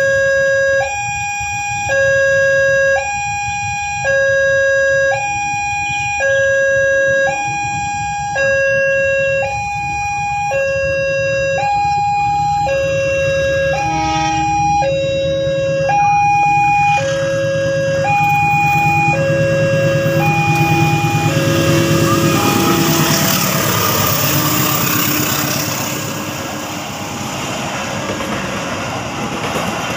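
Railway level-crossing warning alarm sounding a two-tone electronic signal, alternating about once a second. From about eighteen seconds in, a passenger train rumbles past across the crossing, growing loud over the alarm and peaking a few seconds later.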